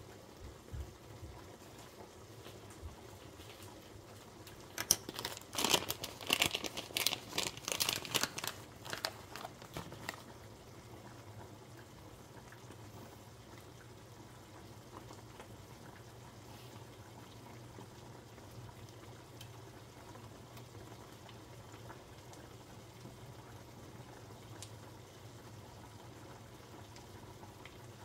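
Crackling and clatter from a pan of corn cooking in melted butter, dense for about five seconds, then dying away to a faint steady hum.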